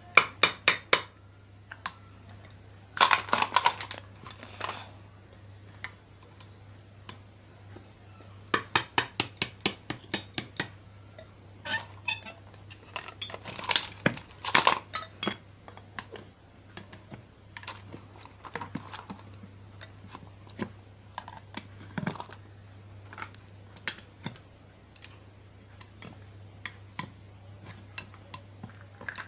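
Screwdriver prying at the seam of a ceiling fan's metal body to separate the halves: irregular metallic clinks, taps and scrapes in clusters, with quieter gaps between.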